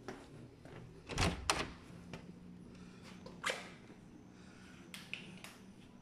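Wooden interior door being opened by its knob: two loud knocks just over a second in, another about three and a half seconds in, and a few light clicks near the end.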